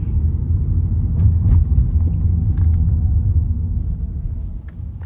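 Low, steady road and engine rumble of a moving car heard inside the cabin, with a few faint clicks, easing off near the end as the car slows.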